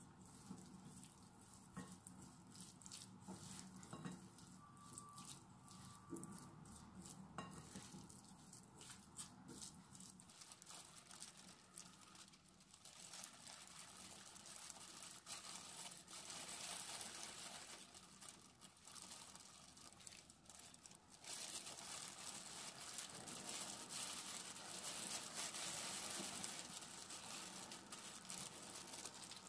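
Wooden spoons stirring and scraping sticky rice mixed with tuna and mayonnaise in a glass bowl, with light clicks. Then disposable plastic gloves crinkle as hands squeeze the rice into balls, louder in the last third.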